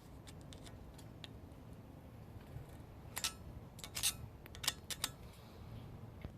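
Sharp metal-on-metal clicks and clinks from hand tools working at a seized, rusted exhaust-manifold nut and stud. A few faint ticks come first, then the loudest cluster of clicks about halfway through.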